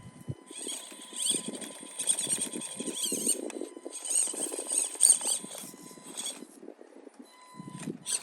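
Axial SCX24 Deadbolt 1/24-scale RC crawler driving: its tiny electric motor and gears whine high, the pitch wavering with the throttle. It runs in stop-start spurts, with a pause about two-thirds of the way through.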